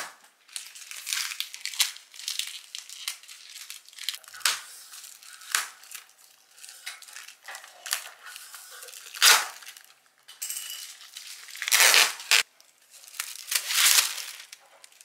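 Packaging being torn open and crumpled: irregular bursts of tearing tape and crinkling plastic wrap, with several louder rips late on, as a newly delivered appliance is unboxed.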